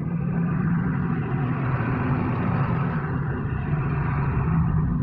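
Large mining haul trucks driving along a haul road, their diesel engines running with a steady low drone.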